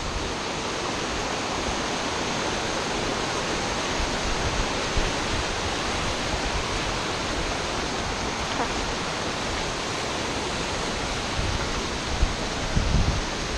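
Steady rushing of a mountain waterfall and of the water running over the rocks close by, with a few brief low bumps near the end.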